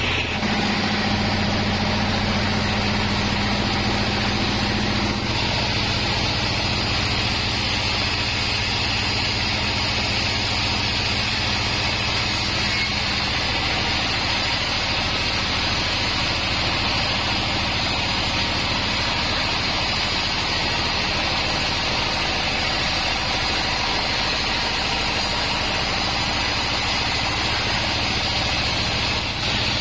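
36-inch band sawmill running steadily, a continuous loud machine drone whose tone shifts slightly about five seconds in.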